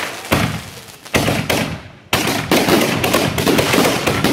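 Consumer aerial fireworks bursting overhead: two loud bangs about a second apart, each trailing off. From about two seconds in comes a rapid string of reports and crackling.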